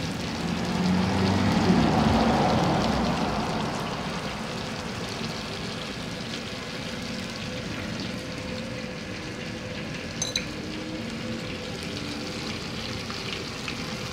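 Chicken frying in chili paste in a steel wok: a steady sizzle, louder for the first few seconds. About ten seconds in there is a short clink.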